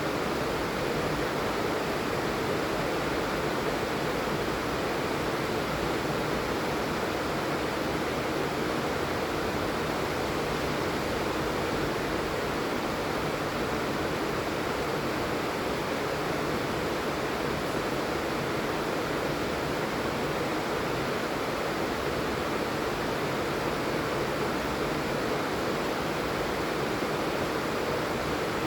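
Steady heavy rain falling, an even, unbroken rush of noise with no breaks.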